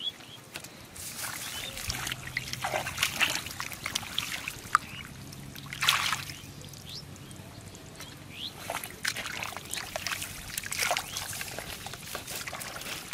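Hands scooping and groping through shallow muddy water, with irregular splashing and squelching of wet mud.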